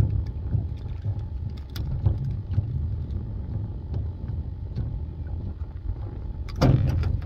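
Wind buffeting the microphone in uneven gusts, with scattered light knocks and clicks from handling on the boat deck, and a louder knock near the end.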